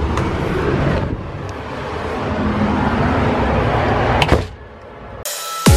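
A front door being opened and then pulled shut with a single sharp latch click about four seconds in, over a steady rushing background noise. Music with a falling sweep starts just before the end.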